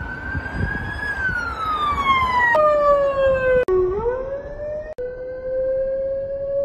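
A siren's single wailing tone, gliding slowly down in pitch and then holding nearly steady. It breaks off and jumps abruptly several times, as if cut together in short snippets.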